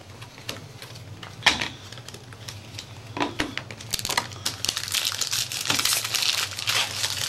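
Foil trading-card packs crinkling as they are handled, in irregular crackles that grow denser about four seconds in.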